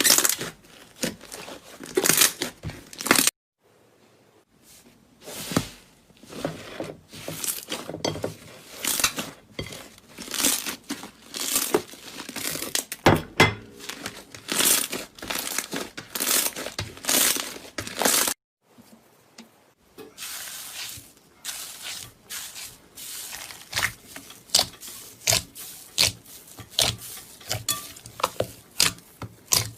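Slime being squeezed and stretched by hand, giving irregular crackling, popping clicks, with two brief breaks in the sound, a few seconds in and about two-thirds of the way through.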